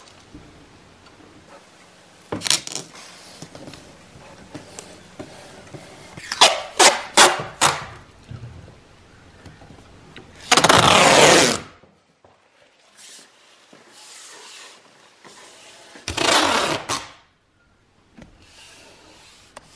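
Masking tape being pulled off the roll and laid along a countertop edge: two loud ripping pulls, each about a second long, roughly ten and sixteen seconds in, with shorter crackles of tape handling earlier.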